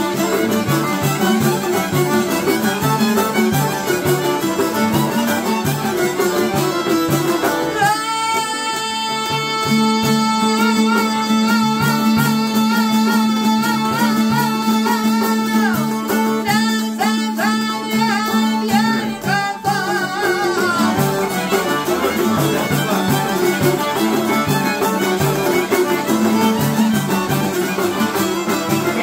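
Çifteli and a second long-necked lute played in a fast, even plucked rhythm for an Albanian folk song. A man's voice comes in about a quarter of the way through, singing long, wavering held notes, and drops out about two-thirds through while the lutes play on.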